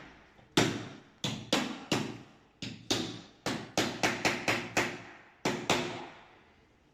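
Sharp tapping strikes of a tool on a door lock during a lock change: about seventeen knocks at an uneven pace, each ringing briefly, stopping shortly before the end.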